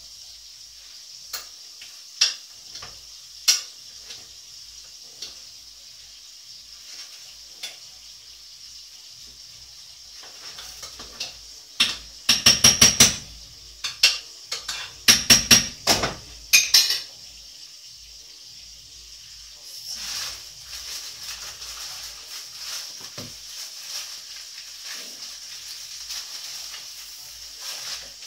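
Kitchen handling sounds: a metal utensil clinking and tapping against dishes and a bowl, with two runs of quick repeated strokes about halfway through, over a steady faint hiss.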